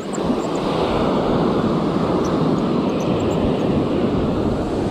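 Surf washing up on the beach, with wind rushing over the microphone: a steady, dull rush that gets louder just as it begins.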